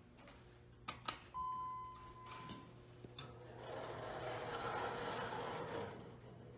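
Two clicks about a second in, then a single steady electronic tone of about a second: the 2001 Thyssen Dover hydraulic elevator's arrival signal as its up lantern lights. Then the single-speed car doors slide open with a running rattle for about two seconds, the loudest sound here. A steady low hum lies underneath throughout.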